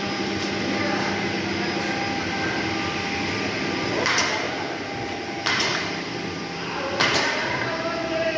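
Automatic edge banding machine running steadily, with three sudden sharp noisy bursts about four, five and a half and seven seconds in.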